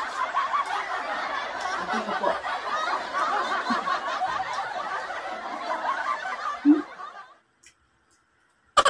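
Many voices laughing together, a laugh-track sound effect, fading out about seven seconds in. Near the end a rapid string of short pulses begins.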